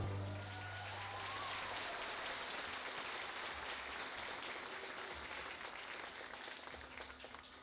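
Audience applauding, a dense patter of clapping that slowly thins and fades. The last orchestral note dies away at the very start.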